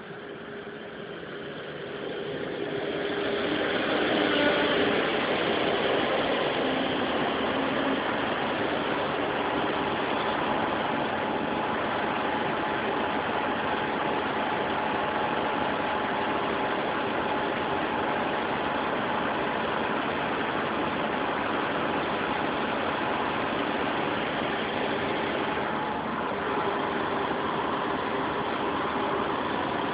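Diesel engines of an AEG diesel multiple unit running at idle. The sound grows louder over the first few seconds, then holds as a steady hum.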